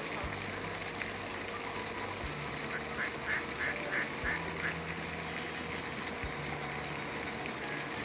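A duck quacking about six times in quick succession, roughly three quacks a second, starting about three seconds in, over a steady low outdoor hum.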